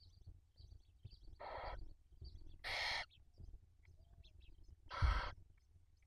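Barn owl chicks giving hissing, rasping begging calls in the nest: three calls, the second the loudest, the last about a second before the end. Faint high peeps and rustling in the nest come between them.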